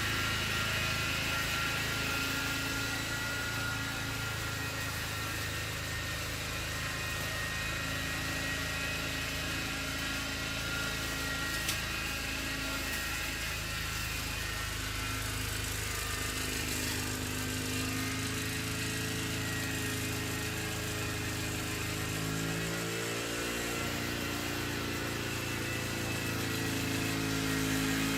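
Remote-controlled lawnmower running steadily as it mows, its pitch wavering and shifting over the last few seconds.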